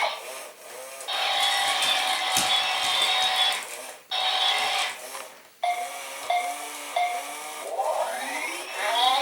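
U-Command Wall-E toy robot playing electronic sound effects from its speaker: a steady electronic tone that breaks off twice, then a run of short repeated beeps, with quick rising sweeps near the end.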